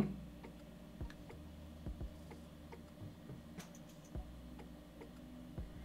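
Faint, irregular small clicks and taps, about half a dozen, over a low steady hum.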